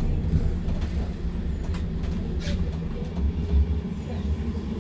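Manchester Metrolink Bombardier M5000 tram running, heard from inside the car: a steady low rumble with a few light clicks. There is a short hiss about halfway through.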